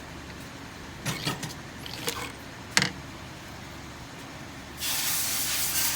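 A few sharp mechanical clicks and clacks from a Cobra Class 26 leather sewing machine being handled, the loudest about three seconds in. Near the end a steady hiss starts.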